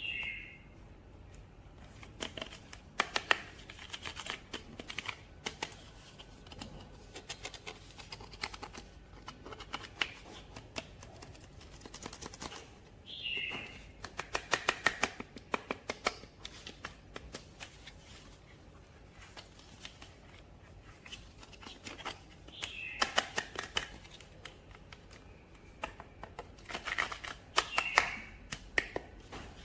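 Hands unpacking toy action figures: bursts of crinkling, rustling and sharp clicks from plastic and cardboard packaging, coming in short flurries every few seconds.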